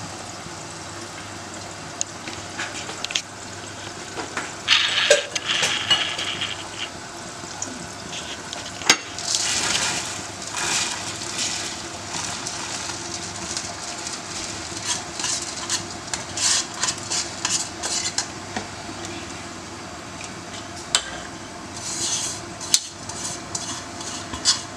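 Rice tipped into a pot of boiling water about five seconds in, then a spoon stirring and scraping against the pot in repeated bursts, over a steady bubbling hiss.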